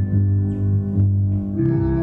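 Slow tango music: sustained, organ-like held chords over a deep bass, with a new chord and a higher held note coming in about a second and a half in.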